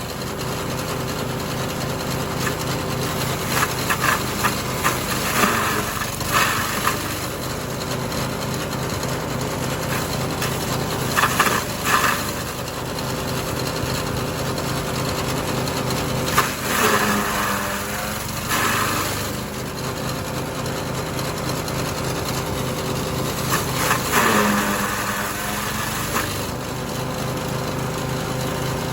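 Small engine driving a forage chopper runs steadily while grass and corn stalks are fed through it, with repeated short bursts of crunching and shredding as the stalks are cut. Twice the engine note dips briefly, as it takes the load.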